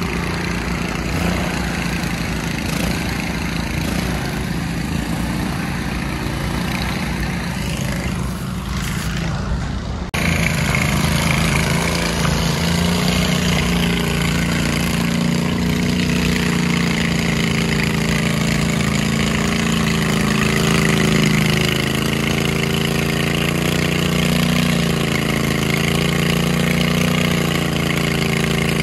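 Riding lawn mower engines running. For about the first ten seconds the engine sound is rougher and noisier; then it changes abruptly to a louder, steady engine note whose pitch rises and falls a little as the mower is driven.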